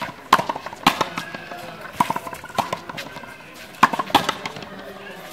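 Fronton rally: a rubber ball cracking off rackets and slapping against the concrete front wall, sharp echoing smacks at an uneven beat of roughly one every half second to a second, with faint voices behind.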